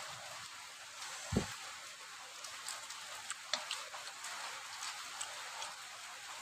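Steady hiss of rain with scattered drips ticking, and a single soft thump about a second and a half in.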